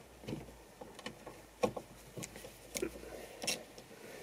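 Scattered light clicks and taps of a hand tool and gloved fingers working at a car door's outside-mirror mount, about one every half second to second.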